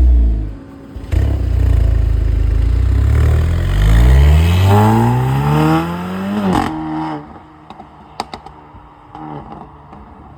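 Mercedes-AMG SL43's turbocharged four-cylinder engine through a valvetronic catback exhaust with catless downpipe. It revs up steadily for about five seconds, cuts off sharply, then settles to a lower steady note with a few sharp pops.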